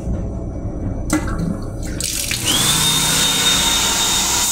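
Sensor faucet in an M7 railcar lavatory, triggered by a hand waved under it, starts running into the sink about two seconds in. The water hisses steadily, with a steady high whine alongside it.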